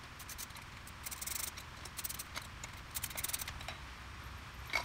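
Small metallic clicks and clinks of a hand tool working the head bolts of an oil-less air compressor pump as its cylinder housing is taken off. They come in two quick clusters, about a second in and about three seconds in, with a sharper click near the end.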